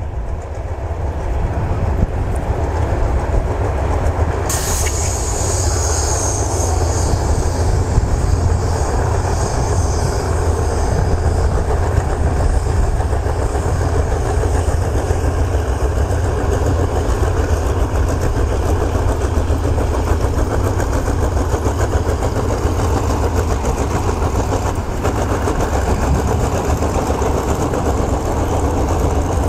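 SRT GEA-class GE diesel-electric locomotive 4530 pulling a passenger train away from the station, its engine working under load with a steady low rumble. A hiss starts suddenly about four and a half seconds in and fades over a few seconds.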